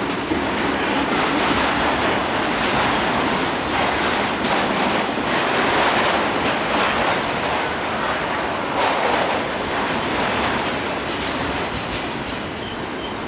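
Autorack cars of a CSX freight train rolling past, their steel wheels on the rails making a steady, dense rumbling noise with occasional faint knocks.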